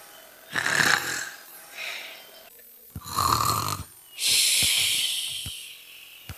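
Imitated snoring: rasping snores on the in-breath about half a second in and about three seconds in, each followed by a long hissy out-breath, the longest starting about four seconds in and fading away.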